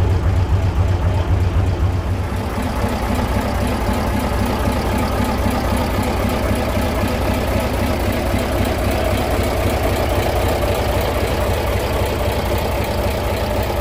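Engine of a 1967 Scania Vabis LS 76 hot-rod truck idling steadily. About two seconds in, the deep low rumble eases a little and a higher engine tone comes up, then holds steady.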